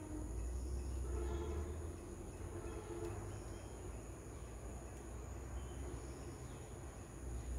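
Outdoor ambience: a steady high-pitched insect drone with a low rumble underneath, stronger in the first two seconds and again near the end.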